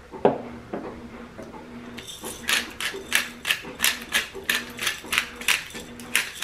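Hand-twisted spice grinder grinding over a bowl of chicken: a run of short rasping strokes, about three a second, starting about two seconds in. Just before that, a single knock as a spice shaker is set down on the table.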